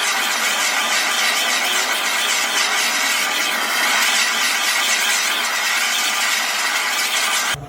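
A power tool running steadily with a loud, high-pitched squealing noise, which cuts off abruptly near the end.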